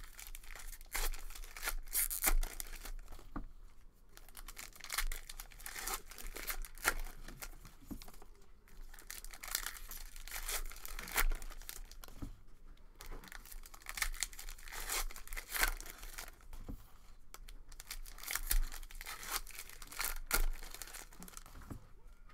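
Baseball card pack wrapper being torn open and crinkled, with the cards rustling and sliding as they are handled, in irregular crackles and rustles.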